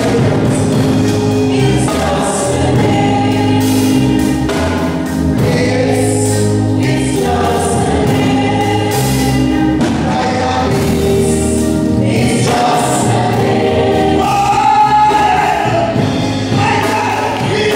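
Gospel song: a man singing lead into a handheld microphone over musical accompaniment, with choir-like backing voices.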